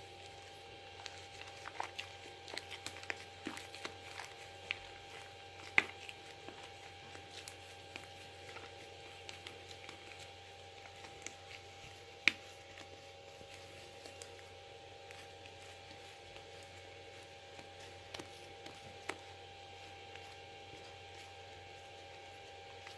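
Green slime with shaving foam mixed in being kneaded by hand: faint squishing with scattered small clicks and pops, two sharper ones about six and twelve seconds in.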